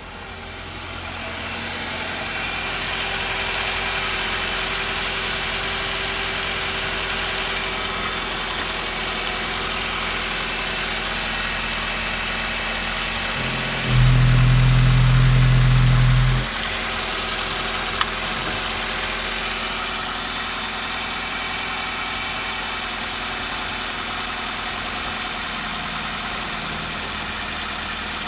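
Nissan Almera N15's 1.6-litre GA16DE twin-cam four-cylinder engine idling steadily. About halfway through, a much louder low drone lasts about two and a half seconds and then drops away.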